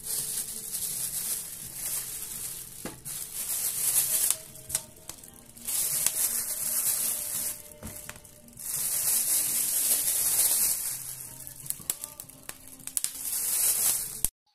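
Background music with a repeating bass line and long stretches of high hissing noise over it; it cuts off suddenly just before the end.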